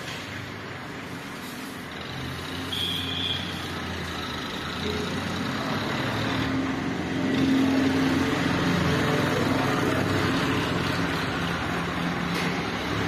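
Steady motor-vehicle engine and traffic noise that grows louder about halfway through, with a short high beep about three seconds in.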